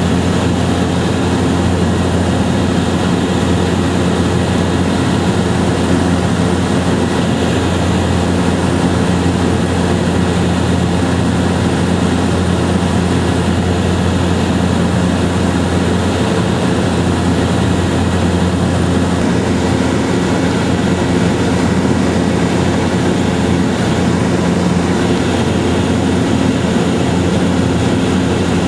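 A loud, steady engine drone with a constant low hum, unchanging in pitch and level.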